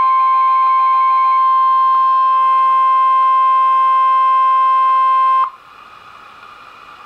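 Emergency Alert System warning alarm tone: a steady single tone of about 1050 Hz, the NOAA Weather Radio alert tone, that cuts off abruptly about five and a half seconds in. It leaves the radio's static hiss underneath.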